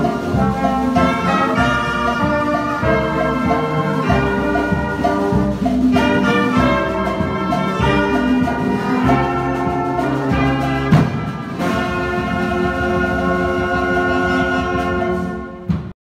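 Brass band of trombones, trumpets and sousaphone playing a gospel hymn tune in full harmony, with one sharp hit about eleven seconds in. The music cuts off abruptly near the end.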